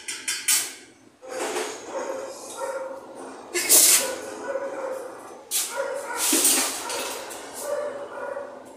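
A dog barking and whining in a string of short yelps and whines, with the loudest barks about four seconds in and again about six and a half seconds in.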